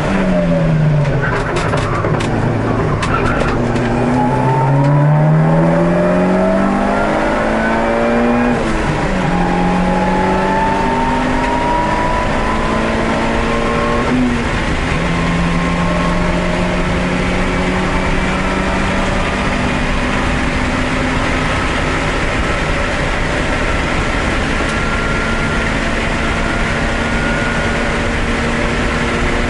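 Race car engine heard from inside the cabin under hard acceleration. The revs dip and flatten early, then climb with two upshifts about six seconds apart, each a sudden drop in pitch, before a long pull at high, nearly steady revs with road and wind noise.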